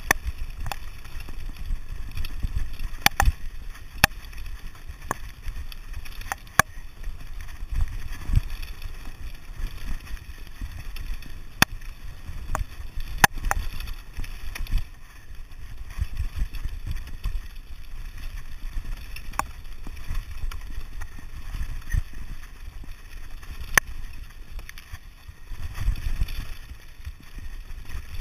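Mountain bike rattling down a rough gravel and stone track at speed: a steady rumble of tyres and wind buffeting the camera microphone, broken by sharp, irregular clicks and clacks as the bike jolts over stones.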